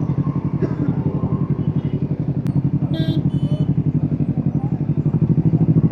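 Motorcycle engine running at a steady speed as the bike is ridden, with an even rapid pulsing that grows a little louder near the end. Two short high chirps sound just past halfway.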